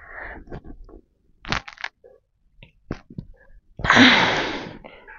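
A man breathing hard through a set of barbell shoulder presses: short breaths, then one loud, forceful exhale about a second long, about four seconds in, fading as it ends.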